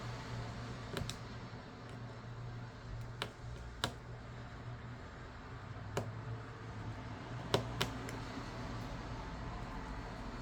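Scattered sharp little clicks and taps of a small screwdriver and screws being handled on a phone's frame, about six in ten seconds with two close together near the end, over a steady low hum.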